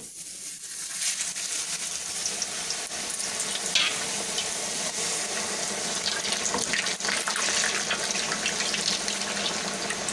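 Round-sliced raw potatoes dropped into hot oil in a kadhai, starting to deep-fry with a loud, steady sizzle full of crackles that sets in suddenly as they go in. A metal skimmer stirs them in the bubbling oil.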